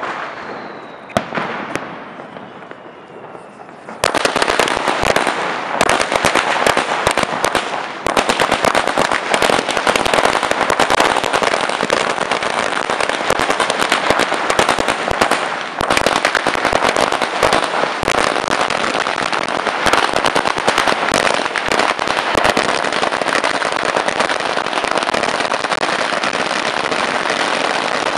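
A 10,000-cracker firecracker garland (ladi) going off: after a few quieter seconds with a single sharp crack, the chain starts bursting about four seconds in and keeps up a dense, continuous rattle of rapid bangs.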